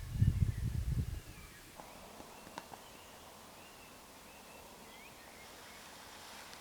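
Faint birds calling with short chirps in the forest background, over soft outdoor ambience. In the first second there are a few low, muffled rumbling bumps on the lapel microphone.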